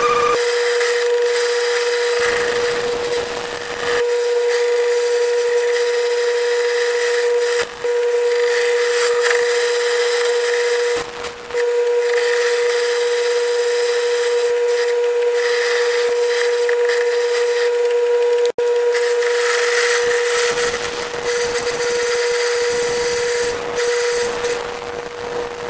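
1937 South Bend metal lathe turning 2-inch bar stock while a carbide-tipped tool cuts into it: a steady high whine over the hiss of cutting. The sound breaks off briefly a few times.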